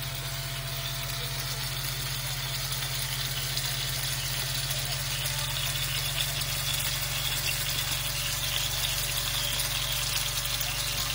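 Raw chicken and pineapple skewers sizzling on a hot electric contact grill: a steady hiss that grows a little louder, over a constant low hum.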